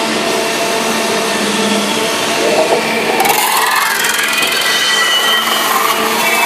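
Metal spinning lathe forming a copper disc over a steel mandrel: the spindle runs steadily while the forming roller presses and rubs along the spinning copper. Whining tones rise in pitch through the middle as the roller works the metal outward.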